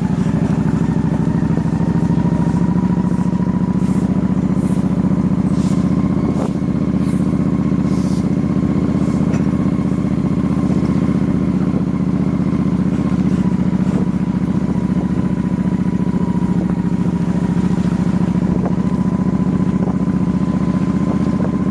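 Wind rushing over the microphone of a camera on a moving motorbike, with the bike's engine running steadily underneath.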